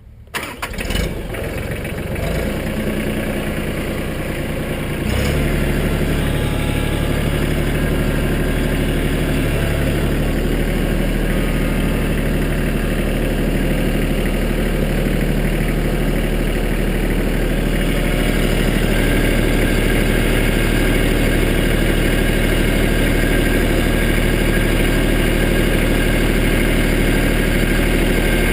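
Mahindra Max 25 compact tractor's diesel engine starting, catching within about a second, then running. About five seconds in it speeds up and runs steadily as the tractor moves off.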